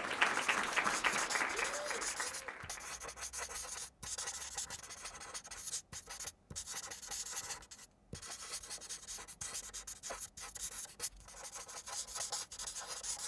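Marker pen writing on a white drawing surface: a scratchy squeak of the felt tip in strokes, broken by several brief pauses as the pen lifts between words.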